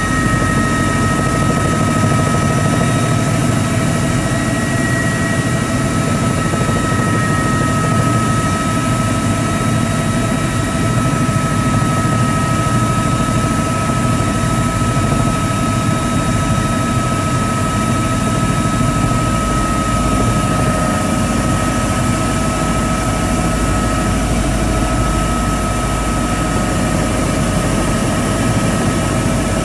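Helicopter engine and rotors heard from inside the cabin: a loud, steady wash of noise with a high whine held on one pitch, during a low approach to land.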